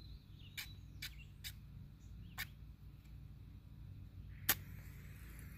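A match struck once: a sharp scrape about four and a half seconds in, then the faint hiss of the flame flaring. A few light clicks come before it, over a low wind rumble on the microphone.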